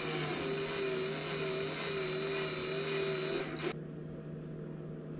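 Cordless electric drill running at a steady speed with a high whine, spinning a pompano teaser fly as it is tied; it stops suddenly about three and a half seconds in.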